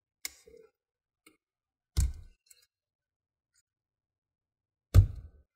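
A small tool knocking the plastic rivets off the keyboard plate of an ASUS ROG Strix GL502 laptop top case: a few sharp clicks and snaps. One is strong about two seconds in and the loudest comes near the end.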